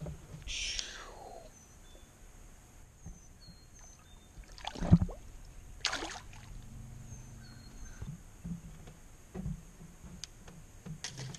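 A largemouth bass dropped back into a pond: a sharp knock about halfway through, then a short splash about a second later as the fish hits the water, with faint bird chirps.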